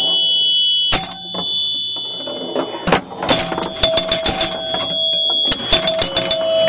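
Gottlieb Delta Queen electromechanical pinball machine in play: relays, switches and coils clacking, with sharp clacks about a second in and three seconds in and a rapid clatter through the second half, over steady high ringing tones.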